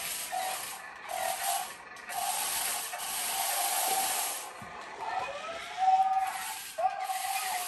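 Small toy RC stunt car's electric drive motors and gears whirring in stretches of a second or two, pitch rising and falling as it drives.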